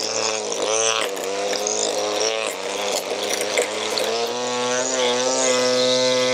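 String trimmer running while cutting grass, its motor pitch dipping and recovering several times as the line bites into the grass, with a few sharp ticks of debris.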